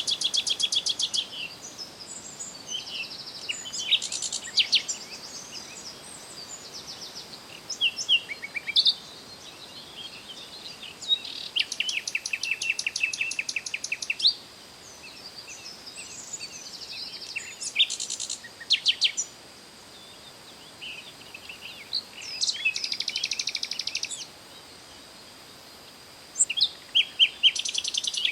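Songbirds singing: rapid trilled phrases lasting two to three seconds, coming back about every ten seconds, with shorter chirps and whistles between, over a steady faint high hiss.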